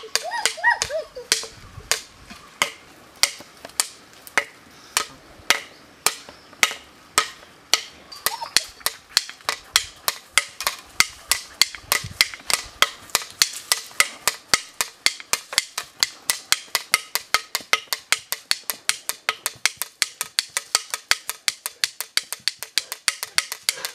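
Sharp percussion strikes in a steady beat that speeds up from about two a second to several a second, over a faint steady tone, accompanying a dance.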